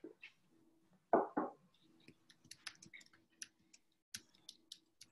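Two dull thumps about a second in, then a run of irregular light clicks from computer keyboard typing and mouse clicks.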